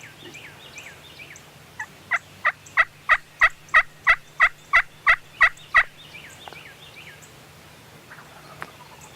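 A run of about a dozen loud turkey yelps, evenly spaced at about three a second, each note dropping in pitch, with faint songbird chirps before and after.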